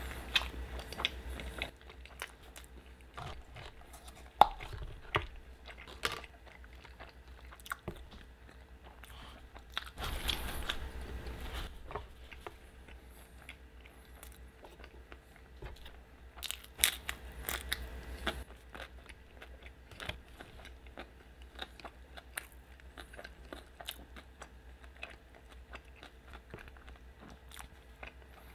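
Close-up chewing and biting of a shrimp burrito: a steady run of short mouth clicks and smacks, with a denser, louder stretch of chewing noise about ten seconds in.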